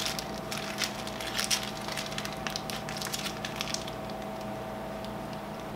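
Light crinkling and clicking of hands handling a plastic zip-top bag of sour cream and a crunchy hard taco shell, busiest in the first few seconds and sparse afterwards, over a steady low hum.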